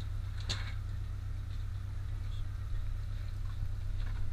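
Charter boat's engine idling, a steady low drone, with one short click about half a second in.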